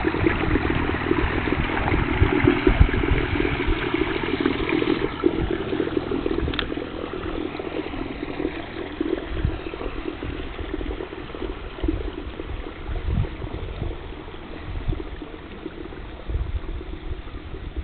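Wind buffeting the microphone in repeated gusts over the steady wash of lake water, with an electric canoe running on the water and its sound fading as it moves away.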